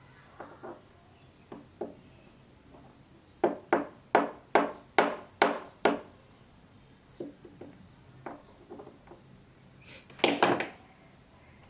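A run of about seven sharp taps, roughly three a second, as a small lens part is knocked against a hard surface. Scattered lighter taps follow, then a brief clatter near the end.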